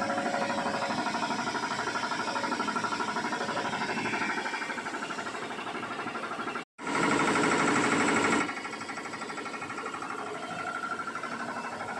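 Machinery running with a fast, even chatter. The sound cuts out for an instant about two-thirds of the way in, comes back louder for under two seconds, then settles lower.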